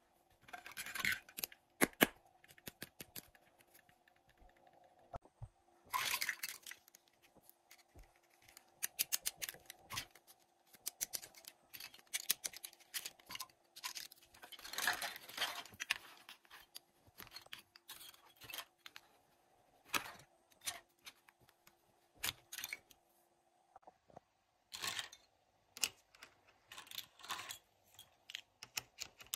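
Small plastic toy kitchen pieces clicking and clattering as they are picked up and handled, with short bursts of scraping and rustling between the clicks.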